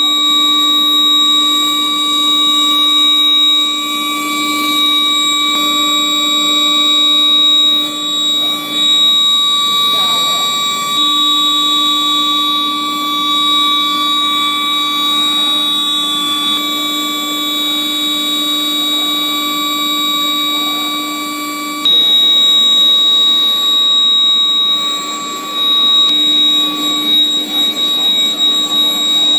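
Induction heating furnace's electrical whine: a steady, loud buzz of several pitches held together, broken by brief shifts a few times.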